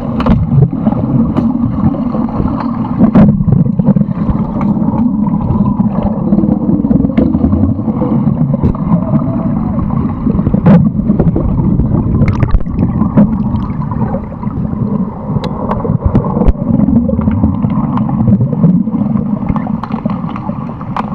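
Sound picked up underwater during an underwater hockey game: a loud, muffled rumble of churning water and bubbles from the players, broken by many sharp clicks and knocks of sticks and the puck on the tiled pool floor.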